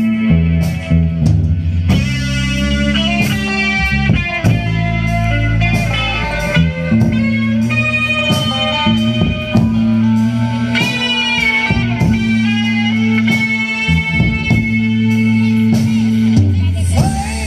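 Live rock band playing an instrumental passage through PA speakers: electric guitars over bass and drums, with a guitar line bending notes upward about eleven seconds in.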